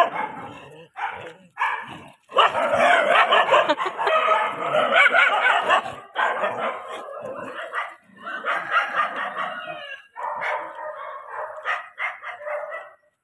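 Dogs barking, starting about two seconds in and running in long, dense stretches with brief breaks.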